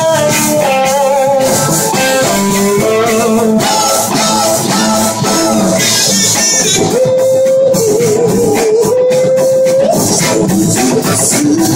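Live electric band playing loud: a slide guitar takes a lead solo of long, wavering notes that glide in pitch, over drums and bass.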